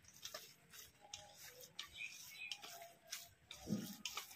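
Faint soft squishing and light ticks of a hand kneading mashed banana flower with mustard oil in a stainless-steel bowl.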